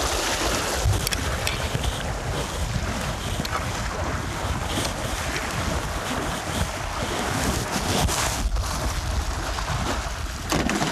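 Strong wind buffeting the microphone with a heavy low rumble, over the steady wash of waves on storm-choppy water. A few faint ticks and knocks sound now and then.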